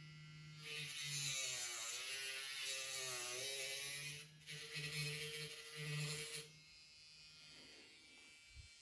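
Battery-powered grinding pen's small cutting disc spinning and cutting into a plastic connector: a high whine with a gritty hiss, its pitch sagging and recovering as the disc bites. It breaks off briefly about four seconds in, then runs again and stops a little after six seconds.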